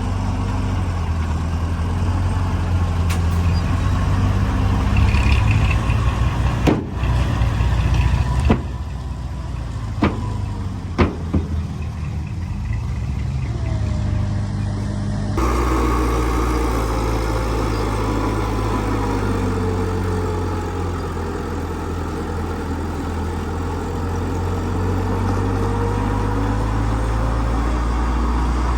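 Heavy earthmoving machinery engines running steadily with a deep drone, with a few sharp knocks around the middle. The sound changes abruptly about halfway through.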